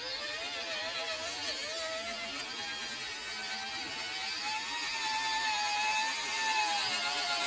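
Electric motor and gearbox of a Traxxas TRX-4 1/10-scale RC crawler whining as it crawls over rock, the pitch wavering with the throttle. The whine rises about four and a half seconds in and drops again near the end.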